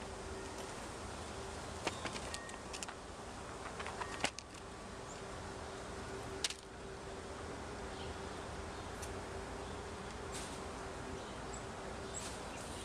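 Outdoor backyard ambience: a steady buzzing hum under a faint hiss, with a handful of sharp clicks and ticks scattered through the first seven seconds.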